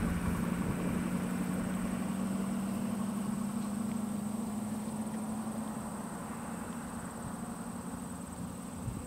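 Vehicle engine running steadily with a low hum that fades away about six seconds in.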